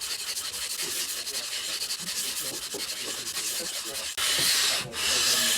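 Cast-iron sole of a vintage No. 3 bench plane being lapped flat, rubbed back and forth on an abrasive surface: a steady scratchy scraping, with two louder strokes in the second half.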